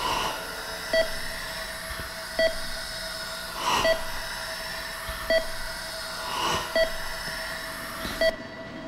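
Short electronic beep repeating steadily about every one and a half seconds, over a soft whooshing swell that comes and goes about every three seconds.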